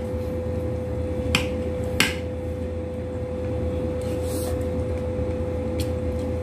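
A few sharp, isolated clicks of utensils against dishes during a meal, over a steady background hum with a faint held tone.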